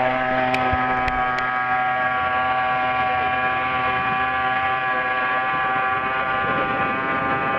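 Two-stroke weed-wacker (string trimmer) engine driving a 48-inch RC boat, running at a steady pitch as the boat planes across the water. Three faint clicks come in the first second and a half.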